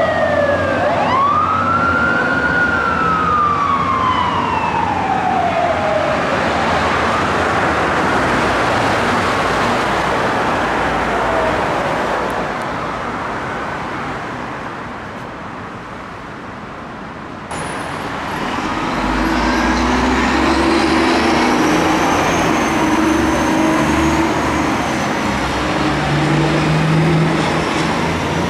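Electronic sirens of fire apparatus wailing as the units pull away, with a long falling glide early on, fading into road noise. After a sudden change about 17 seconds in, a fire engine's siren wails again over its diesel engine running.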